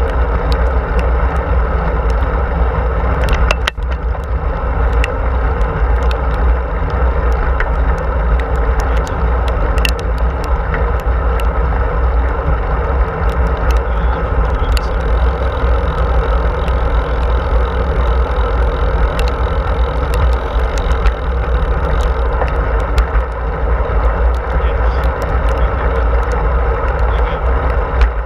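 Wind buffeting the microphone of a handlebar-mounted camera on a moving bicycle, a steady heavy rumble, with tyre noise on asphalt and scattered small clicks.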